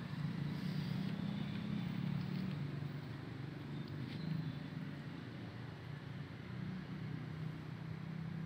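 A low, steady engine hum of a motor vehicle running in the background. It eases a little in the middle and swells again near the end.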